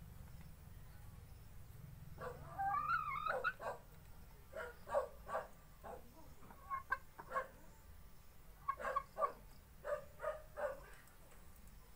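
A hen calling. About two seconds in there is a drawn-out, wavering call, followed by a string of short clucks that come in groups of two or three.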